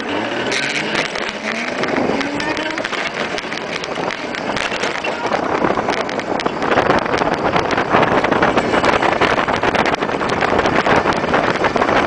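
Vehicle engine pulling away from a stop, its pitch rising over the first couple of seconds. Then it runs steadily at road speed under loud wind rush on the microphone.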